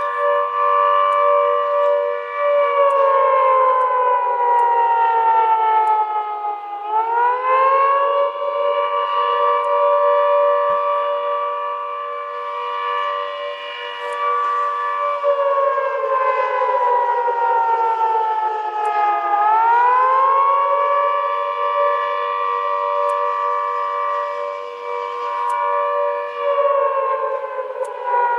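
Air raid siren sounding a two-note chord that holds steady for several seconds, slides slowly down in pitch over about four seconds, then swoops quickly back up. The hold, fall and rise repeat twice, with a third fall near the end.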